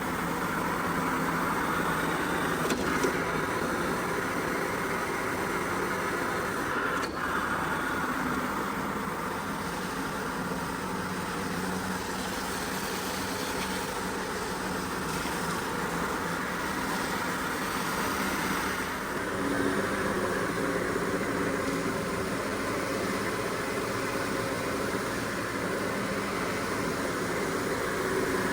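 A motor-driven machine running steadily, with a couple of faint clicks.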